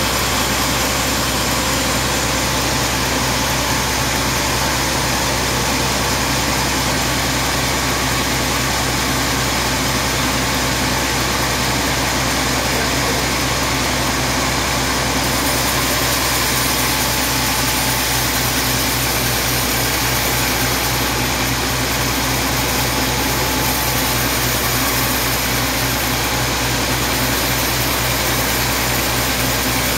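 Large sawmill band saw running steadily as its blade rips lengthwise through a teak log: a loud, continuous machine drone with a steady low hum.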